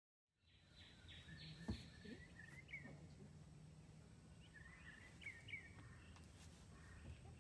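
Faint birds chirping now and then over a low steady hum. A single sharp knock comes just under two seconds in.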